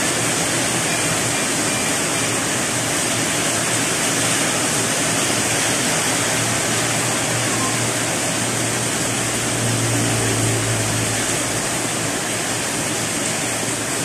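Steady, loud rushing noise, even throughout, with a faint low hum swelling about ten seconds in.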